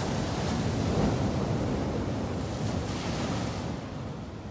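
Ocean surf washing ashore, with wind buffeting the microphone; the wash swells about a second in and fades near the end.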